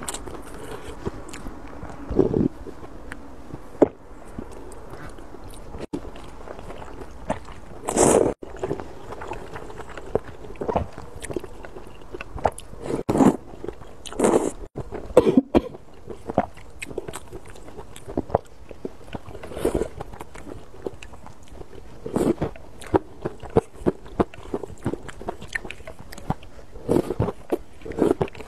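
A person slurping wheat noodles from a bowl of spicy chili-oil noodle soup and chewing them, heard close up: irregular slurps, the loudest about eight seconds in, among smaller mouth sounds and short clicks.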